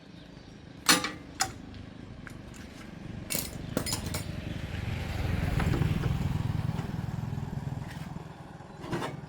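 A motor vehicle's engine passes by, swelling to its loudest in the middle and then fading away. A few sharp metal clinks of tools sound before and after it.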